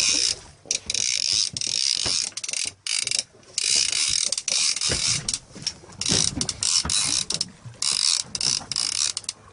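Fishing reel working under load as a fish is fought: repeated spurts of whirring, ratcheting noise from the reel's gears and drag, stopping and starting every second or so.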